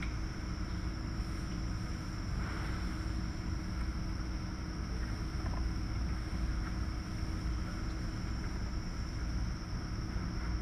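Steady low mechanical drone with a constant hum and a faint high whine, the running background noise of a hog barn's farrowing room.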